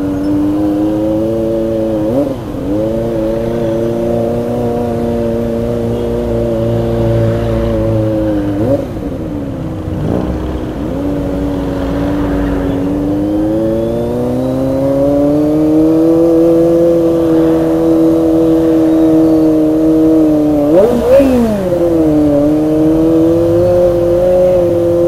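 Kawasaki ZX-25R's 249 cc inline-four engine running under way with the throttle held fairly steady. The revs dip briefly about two and nine seconds in, climb gradually from about eleven to sixteen seconds in, and there is a sharp rev blip about twenty-one seconds in.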